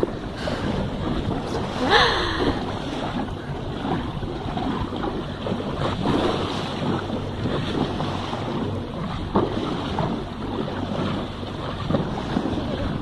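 Wind buffeting the microphone over sea water washing against a boat, with a steady low hum from the boat's engine underneath. A brief louder burst comes about two seconds in.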